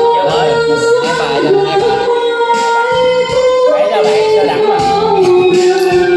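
A woman singing karaoke into a microphone over a backing track, holding long notes that step from one pitch to the next.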